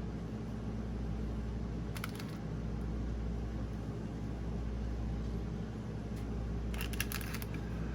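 Air fryer running, a steady fan hum, with a couple of brief clicks of handling about 2 and 7 seconds in.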